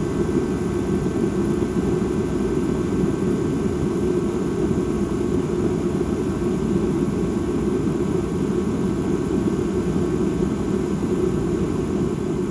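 Dark ambient drone: a steady, unbroken low rumble with faint sustained high tones above it, unchanging throughout.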